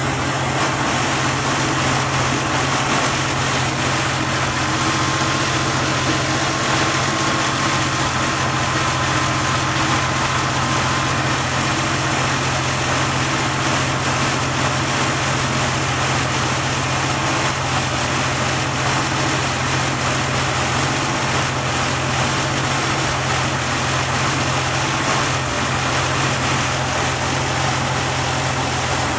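Rear-mounted car engine idling steadily, heard close up at the open engine lid, a constant low hum with no change in speed.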